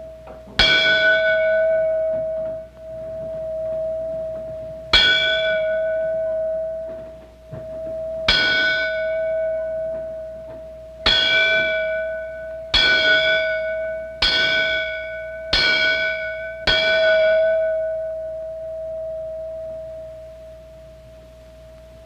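A small metal bell struck eight times, each stroke ringing out and fading, the strokes coming faster and faster. A steady ringing tone runs underneath.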